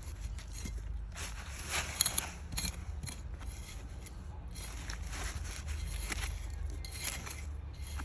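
Irregular scraping, crunching and rustling of digging through soil and potato plants to pull out the tubers, a stroke every fraction of a second, over a steady low hum.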